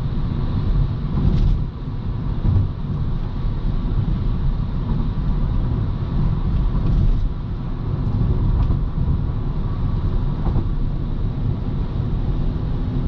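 Steady road and engine noise inside a naturally aspirated Honda Civic's cabin, cruising at highway speed on cruise control: an even low rumble of tyres and engine.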